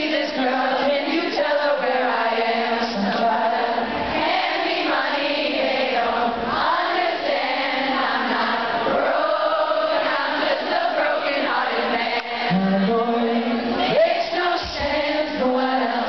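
Live pop-rock band playing, with many voices from the crowd singing along.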